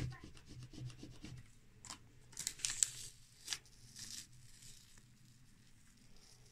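A plastic card rubbed briskly back and forth over clear vinyl transfer tape on a varnished wooden board, pressing the letters down. From about two seconds in, the transfer tape is peeled up off the wood with a few short crackling rips.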